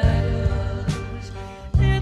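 Background music: a pop-rock song with sustained chords over a steady bass, dropping back and then coming in loudly again near the end.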